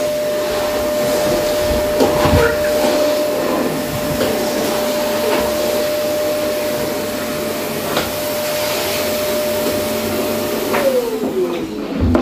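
Canister vacuum cleaner running steadily with a constant motor whine. Near the end it is switched off and the whine falls in pitch as the motor winds down.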